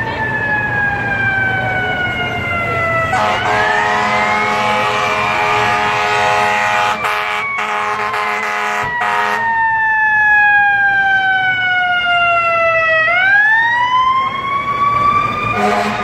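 Fire truck siren wailing, slowly sinking in pitch and then climbing again near the end. A blaring horn is held over it for several seconds starting about three seconds in, and sounds again just before the end.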